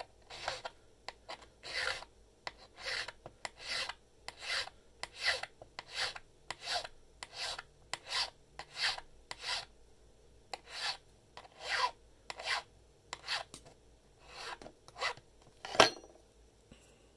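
Hand file rasping on a key blank in short, even strokes, about one and a half a second, cutting down the key's bittings while impressioning a padlock key. The strokes pause briefly about ten seconds in, and a single sharp knock comes near the end.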